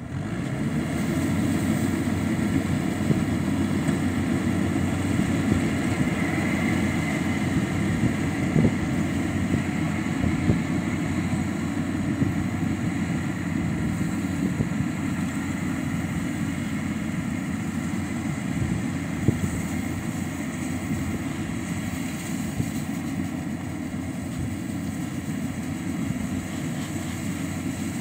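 Yanmar combine harvester's diesel engine and machinery running steadily under load, a dense low drone.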